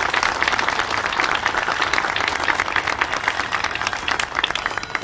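Audience applauding, many hands clapping at once, tapering off slightly near the end.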